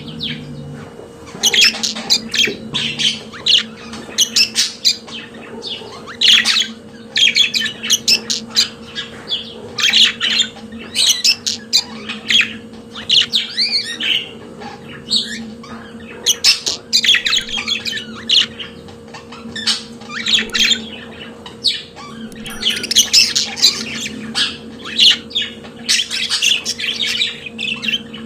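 Budgerigars warbling and chattering: a fast, continuous stream of short squawks, chirps and whistled notes. A steady low hum runs underneath.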